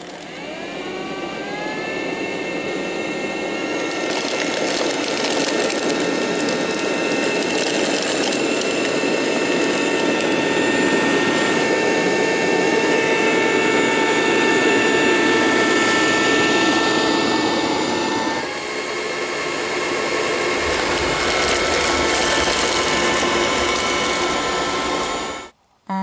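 Miele Scout RX2 robot vacuum cleaner running on carpet: its motors spin up with a rising whine, then run steadily with a high whine over a rushing suction noise as it sweeps up debris. The tone shifts about two-thirds of the way through, a low rumble joins in, and the sound cuts off suddenly just before the end.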